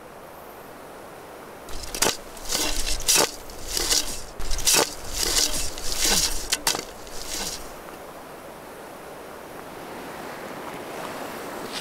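Spruce branches being shaken and raked by hand: a run of about a dozen rustling, cracking swishes between about two and seven and a half seconds in. After that there is only a faint steady wind hiss.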